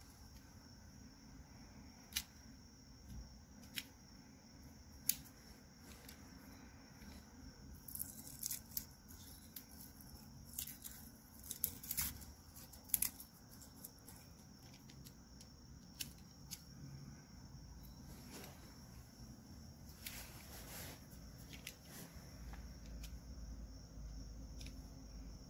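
Faint, scattered clicks and scratches of a utility knife blade scoring painter's tape on a dumbbell, with the excess tape being peeled off, busiest a third of the way in. A steady high chirring of crickets runs underneath.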